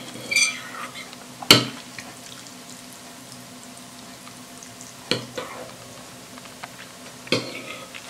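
Metal fork stirring wet instant noodles in a ceramic bowl: a soft, wet squishing, with three sharp clinks of the fork against the bowl, the loudest about a second and a half in. It sounds satisfying.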